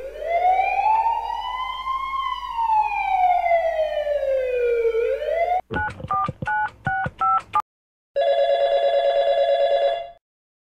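An ambulance siren sound effect: one slow wail that rises, falls and starts to rise again. It is followed by a quick run of touch-tone telephone dialling beeps, then a telephone ringing with a fast trill for about two seconds.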